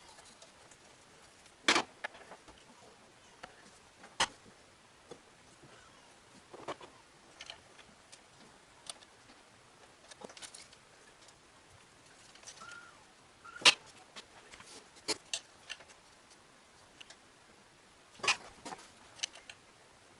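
Hand tools and metal parts being handled during engine assembly: scattered light clicks and clinks, with a few louder sharp knocks about two, four, fourteen and eighteen seconds in.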